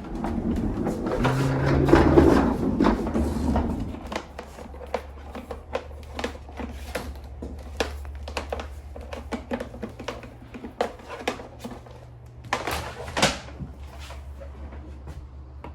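A shop vacuum and its hose being fetched and set up: clatter, clicks and knocks of plastic parts being handled over a low steady hum, with a louder rushing stretch in the first few seconds and a shorter one near the end.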